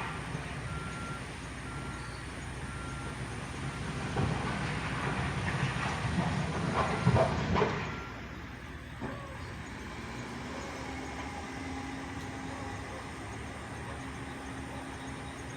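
Backhoe working gravel: engine running with scraping and clattering, and a backup alarm beeping about once a second. About eight seconds in the beeping and clatter stop and it settles to a quieter, steady engine hum.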